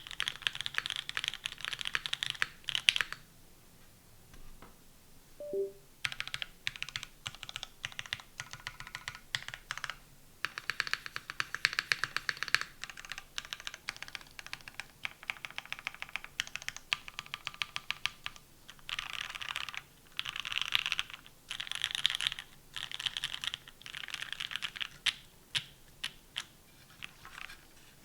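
Typing on a custom mechanical keyboard: a Perry IU V2 with a carbon fiber plate, OP Black linear switches lubed with 205g0, and GMK keycaps. The keystrokes come in fast, dense runs, stop about three seconds in, pick up again about three seconds later, and stop near the end.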